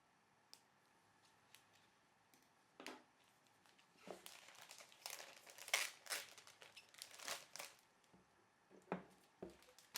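Packaging being handled as a tablet is lifted out of its box: rustling and crinkling with a few light clicks, busiest from about four seconds in.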